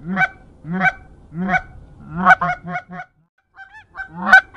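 Goose call blown in Canada-goose-style honks, one about every two-thirds of a second, then a quick run of short clucks; after a brief gap, one more loud honk near the end.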